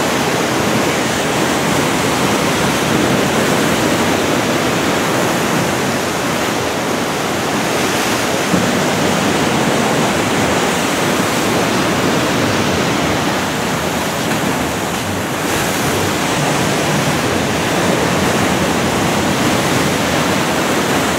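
Rough sea: waves breaking and churning into white foam, a steady rush of surf.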